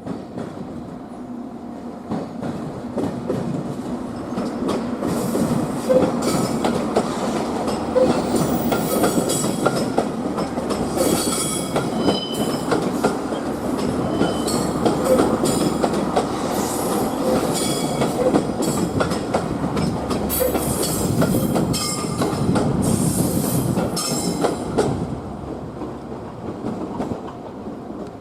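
Electric train moving through the depot tracks, its wheels clacking irregularly over rail joints and points and squealing on and off. The sound builds over the first couple of seconds and fades away near the end.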